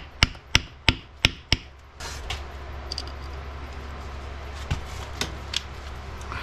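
A hammer tapping a drive flange cap into place on a Dana 60 front hub: six quick taps about a third of a second apart in the first second and a half, then a few faint clicks.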